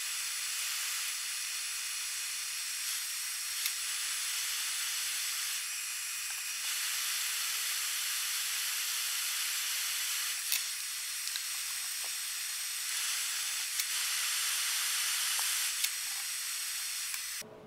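Steady high hiss of a benchtop soldering fume extractor's fan running, with a few short sharp clicks from the soldering work. The hiss cuts off suddenly just before the end.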